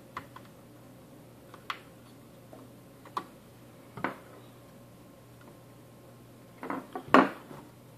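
Scattered light clicks and taps of plastic and metal as a part is pushed and worked into the metal case of a Cisco AP541N access point, catching on the circuit board instead of snapping in. A short cluster of louder clacks comes near the end.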